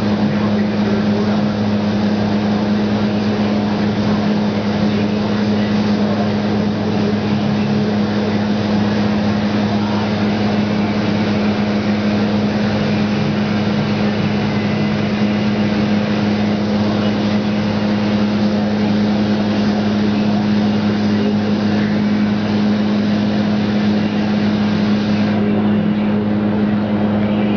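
Paint booth running with a steady mechanical drone and low hum, under an even hiss of air from the spray gun as paint is sprayed.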